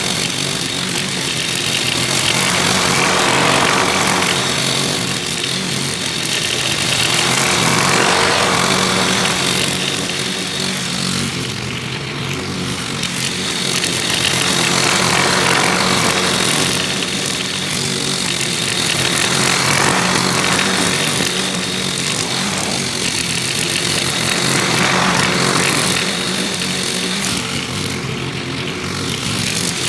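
Petrol lawn mower engine running steadily while mowing thick grass into its bag, growing louder and fainter every few seconds.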